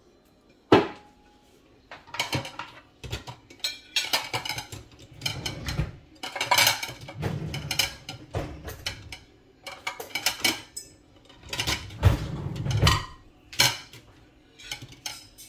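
Dishes and cutlery clinking and knocking in an irregular run of sharp clatters, with one hard knock about a second in.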